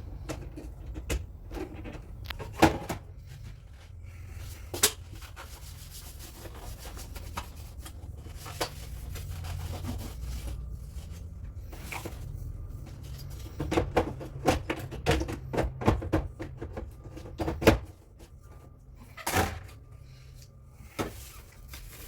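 Scattered clicks and knocks of the OKI dot matrix printer's plastic parts being handled and fitted as the printer is put back together, coming thickest in a run of taps about fourteen to eighteen seconds in. A low steady hum lies underneath and drops away about eighteen seconds in.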